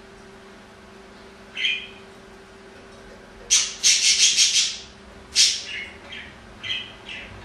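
Budgerigar chirping: a short call about a second and a half in, then a loud run of rapid sharp chirps lasting about a second, followed by several shorter calls.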